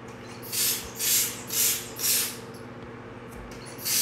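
Hand-pump cake paint sprayer puffing out blue edible paint, a short hiss with each pump stroke. Four hisses come about half a second apart, then a pause, then another near the end.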